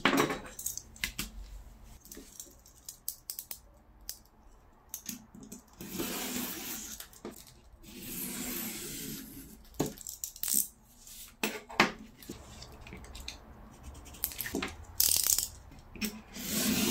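Paper and a plastic mailer bag rustling and being handled on a desk, with scattered sharp clicks and taps as a pencil and ruler are set down. Near the end comes a longer rustle as a craft knife is drawn along a ruler through the mailer.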